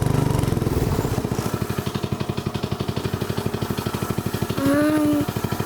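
Small go-kart engine running steadily at idle, a fast even pulse of firing strokes.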